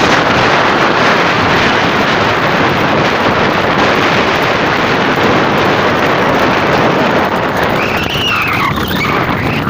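Loud, steady wind rushing over a microphone carried at road speed, a dense, even roar.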